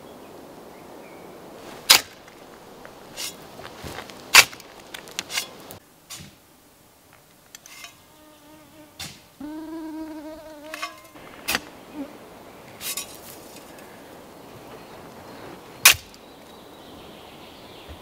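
A flying insect buzzing close past for about a second and a half near the middle, over a faint steady outdoor hiss. Several sharp clicks or snaps are scattered through, the loudest near two, four and sixteen seconds in.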